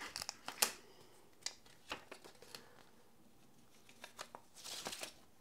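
Faint handling sounds: a few light clicks and taps as small parts are handled on the desk, then a short rustle of a paper instruction leaflet being unfolded near the end.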